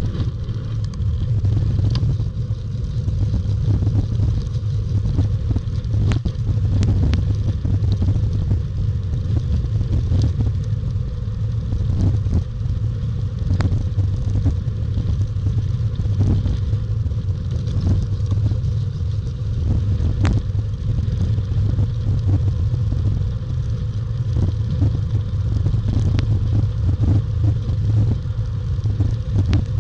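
Wind buffeting the microphone of a camera riding on a bicycle along a dirt trail: a steady low rumble with frequent small clicks and knocks from the bumpy ground.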